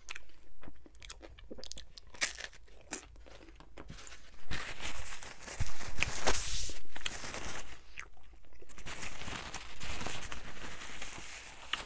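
Close-miked chewing of a bite of BBQ chicken pizza, crunching on the crust with many small mouth clicks. In the second half come louder rustling stretches as a paper napkin crinkles in the hands.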